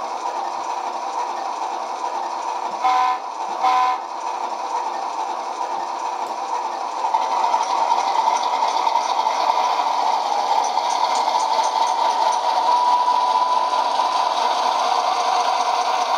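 Diesel locomotive sound from a SoundTraxx Tsunami sound decoder, playing through the HO-scale model's two small speakers: a steady engine drone with no deep bass. Two short horn toots come about three and four seconds in, and the engine sound gets louder about seven seconds in.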